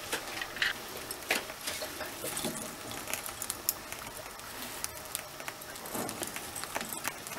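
Light, scattered crackles and clicks over a faint hiss as dried incense herbs are dropped onto glowing charcoal in a clay pot.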